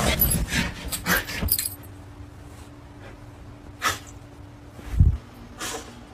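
A dog scratching and digging at a fleece blanket on a bed, a quick run of rustling strokes for the first second and a half. After that it goes quieter, with one sharp sound and a low thump about five seconds in.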